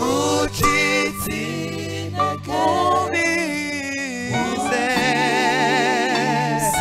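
Male voices singing a gospel song in parts over a keyboard's sustained chords. About two-thirds of the way in, the voices settle into one long held note with vibrato.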